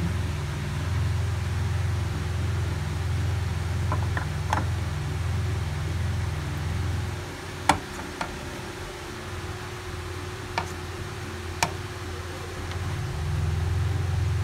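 Whole tulingan being laid one by one into a metal frying pan: a few scattered light knocks and clicks over a steady low hum that drops away for a few seconds in the middle.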